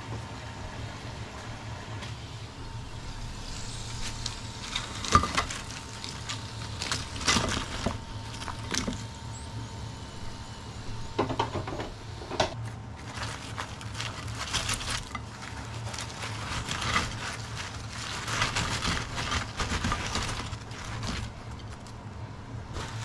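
Kitchen paper rustling and crinkling while crisp battered fried potato slices are set down and shifted on it, in irregular clicks and short rustles, over a steady low hum.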